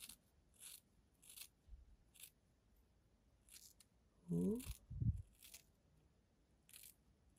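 Scissors snipping the hair off a weave track: quiet, short snips at irregular intervals, about six in all. About four seconds in there is a brief hum-like vocal sound, followed by a soft low thump.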